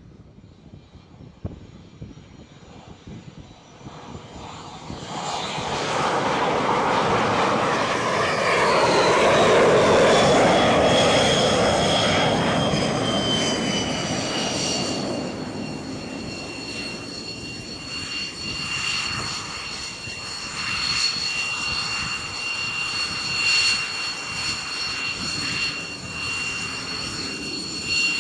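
Jet aircraft noise builds to a loud rush about ten seconds in as a jet comes down onto the carrier deck, then a high turbine whine glides down in pitch and settles into a steady whine as the X-47B tailless drone's turbofan idles while it taxis.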